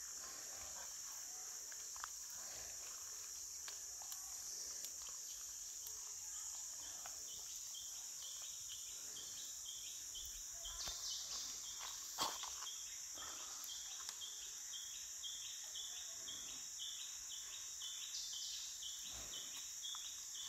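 Steady high drone of forest insects. About halfway through, a second insect's pulsing call joins, repeating roughly twice a second. A few faint knocks and one sharper knock a little past halfway.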